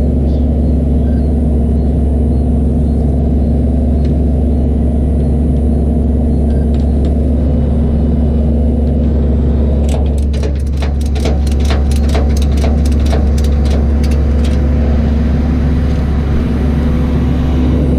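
Flatbed tow truck's engine running with a steady low drone. About ten seconds in, a quick run of sharp clicks, about three or four a second, lasts some four seconds.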